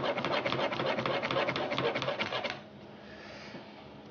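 Kitchen knife rapidly chopping a cucumber on a wooden cutting board: a fast, even run of blade strikes on the board, about ten a second, that stops about two and a half seconds in.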